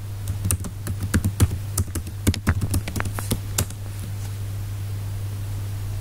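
Computer keyboard typing: a quick run of keystrokes that stops about three and a half seconds in, leaving a steady low hum.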